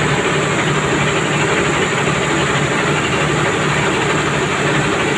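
Rice mill machinery running steadily, a loud, even mechanical drone with a pulsing low hum.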